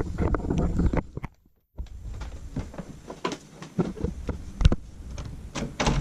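Irregular knocks, clicks and rustling, broken by a brief cut to silence about a second and a half in.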